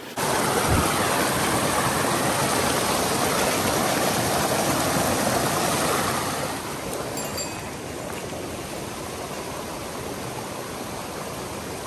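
Steady rush of flowing water, loud at first and dropping noticeably about six seconds in, then continuing at a lower level.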